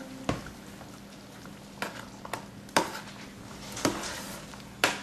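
Metal spoon knocking and scraping against the sides of a stainless steel saucepan while stirring a thick lentil stew, about six irregular clinks.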